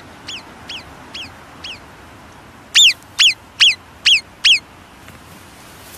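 Alpine marmot sounding its alarm call: a series of short, high whistles, about two a second. Four fainter whistles come first, then about three seconds in, five much louder, ear-rending ones.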